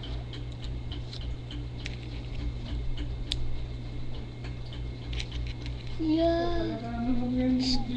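Light, irregular clicks and taps of a small plastic toy and a crayon being handled on a tabletop, over a steady low hum. About six seconds in, a child's voice sings a few held notes.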